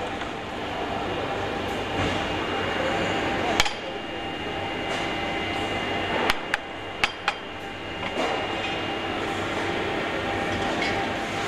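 Hammer striking a starter motor on an assembly bench: one sharp knock a few seconds in, then four more in two quick pairs a little past halfway. Steady factory machinery noise runs underneath.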